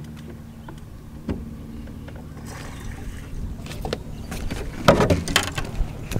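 Knocks and rustling handling noise on a boat deck: a single knock early, then a jumble of knocks and rubbing that is loudest about five seconds in, over a low steady hum.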